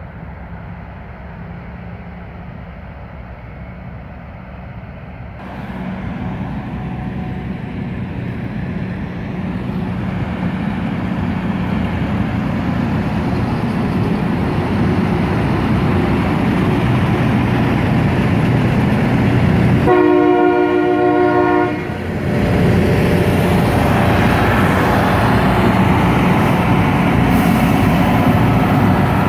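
Loram rail grinder working along the track, its machinery and grinding noise growing louder as it approaches and passes close by. Its horn sounds for about two seconds about two-thirds of the way through, and again at the very end.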